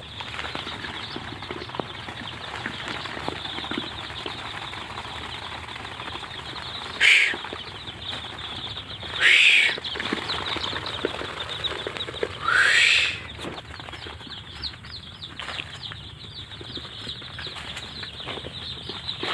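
A flock of week-old Sonali chicks peeping constantly, with rustling and scratching among them. Three louder rising calls stand out, about seven, nine and a half and twelve and a half seconds in.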